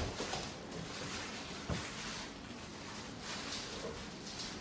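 Plastic wrapping rustling and crinkling in repeated swells as it is handled and pulled open, with two soft knocks, one at the start and one nearly two seconds in.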